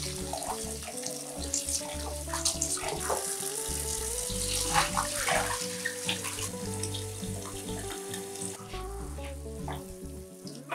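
Kitchen tap water running and splashing into a plastic bowl as sliced banana stem is rinsed by hand, then the soaked slices are tipped out into a plastic colander.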